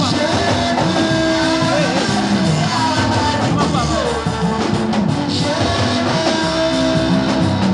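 Live gospel praise music with singing, played loud and continuous, with held and gliding melody notes over a full band backing.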